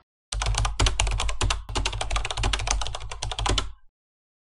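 Computer keyboard typing: a fast run of key clicks, with a brief pause about a second and a half in, stopping shortly before the end.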